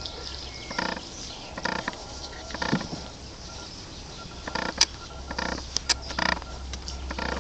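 Four-week-old Newfoundland puppies grunting and snuffling as they play, in short bursts about once a second, with a couple of sharp clicks near the end.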